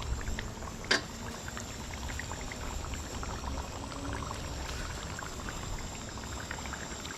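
Thick chicken curry gravy simmering in the pot, bubbling with many small irregular pops over a steady low rumble. One sharp knock about a second in.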